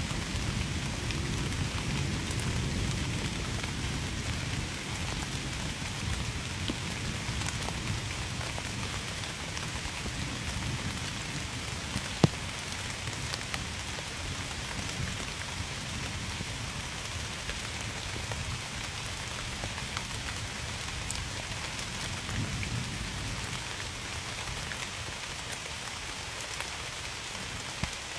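Steady rain falling, with a low rumble of distant thunder that fades over the first few seconds. A single sharp click stands out about twelve seconds in.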